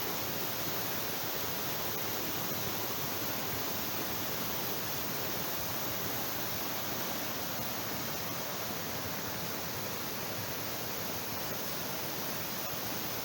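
Waterfall pouring into its plunge pools: a steady, even rush of water.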